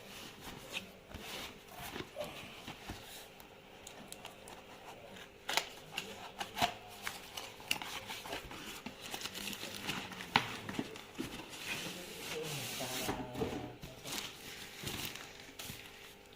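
Packaging being handled: scattered clicks, taps and crinkles of cardboard and plastic, over a faint steady hum.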